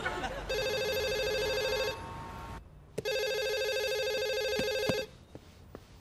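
Office telephone ringing twice, each ring a pulsing electronic tone lasting under two seconds, with a short pause between.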